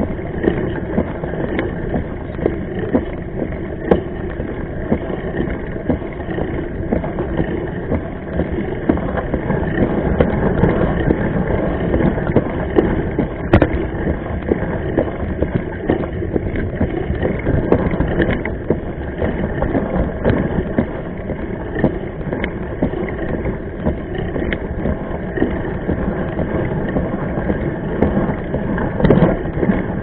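Mountain bike rolling over a rough gravel and dirt track, heard through a camera mounted on the bike: steady tyre and wind rumble with frequent small knocks and rattles over bumps, a sharper knock about halfway through.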